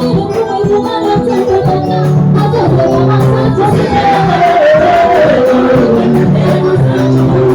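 Loud church gospel music: a sung melody over a steady beat, with a sustained bass line and percussion.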